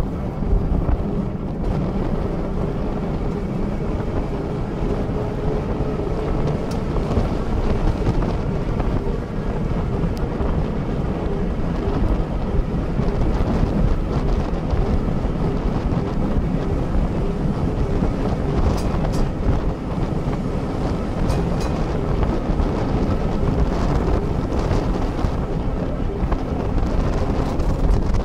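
1898 Hudson Bros-built Sydney electric tram C 29 running along the track, a steady rumble of wheels on rail with a faint hum in the first several seconds. Heavy wind buffets the microphone on the open platform, and a few brief clicks come through in the second half.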